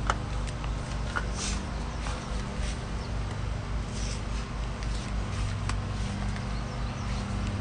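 A few sharp snips and soft rustling as gourd vine tips are cut and handled, over a steady low mechanical hum.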